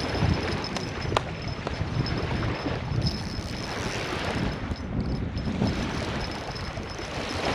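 Strong wind buffeting the microphone, a gusty rushing that covers most other sound, with one sharp click about a second in.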